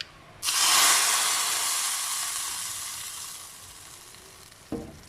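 Hot ghee tempering with mustard seeds and curry leaves is poured from a tempering ladle into the rasam and sizzles. The hiss starts suddenly about half a second in, is loudest at once, and fades away over about four seconds. A short low knock follows near the end.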